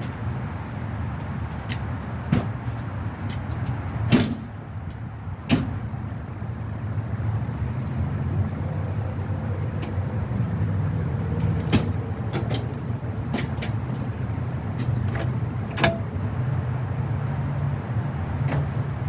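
Scattered sharp knocks and clicks from handling the vehicle, over a steady low rumble; the two loudest knocks come about four and five and a half seconds in.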